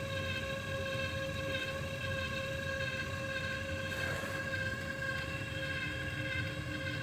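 Central-heating circulation pump whistling: a steady high-pitched whistle with several overtones over a low motor hum.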